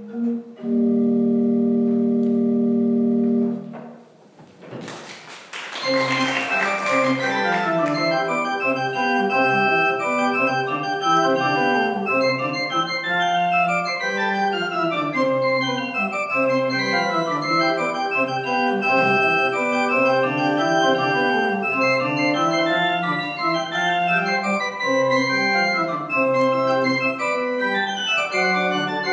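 Johannes Hahn senior's 1770 pipe organ holds a chord for about three seconds, which then dies away in the church's reverberation. After a brief click about five seconds in, a brisk piece with quick running notes over a moving bass starts and carries on.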